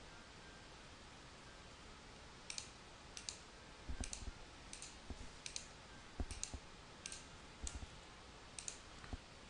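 Faint computer mouse button clicks, about ten at a steady pace starting some two and a half seconds in, many of them a quick double tick of press and release.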